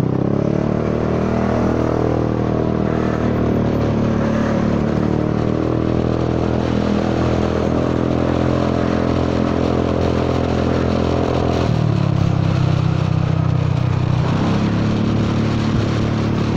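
Honda Forza 300 scooter's engine running through an exhaust whose baffle insert has worked loose. The revs climb for the first couple of seconds, then hold steady, drop about twelve seconds in and pick up again a couple of seconds later, over wind and road noise.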